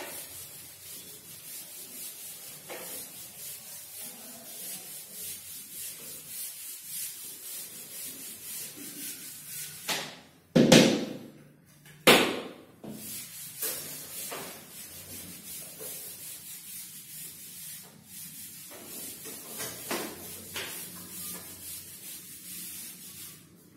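Chalkboard duster wiping chalk off a chalkboard in quick, rhythmic back-and-forth strokes, with two louder strokes or knocks about halfway through.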